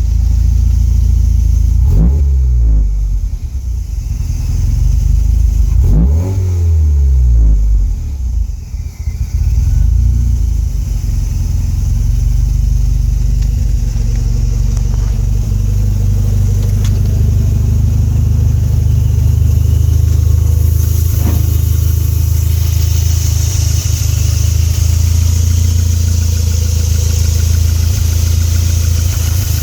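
Car engine, plausibly a Toyota MR2's, running at a rough idle. It is revved up and back down twice in the first few seconds, then settles into a steady idle. A steady hiss joins in about two-thirds of the way through.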